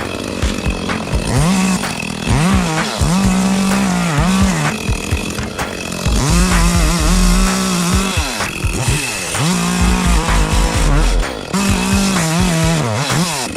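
Two-stroke chainsaw revving up to full throttle, holding there while it cuts wood, then dropping back toward idle. This happens several times over.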